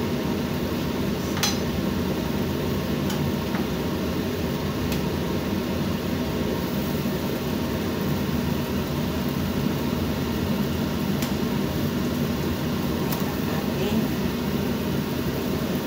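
A steady low hum and rush, with a handful of light clicks from a metal ladle against a frying pan while chicken stew is stirred.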